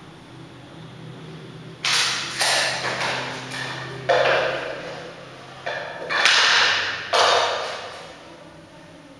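Hand work on laminate flooring planks: a series of about six short scraping strokes, each starting sharply and fading within about a second, from marking and measuring on the planks.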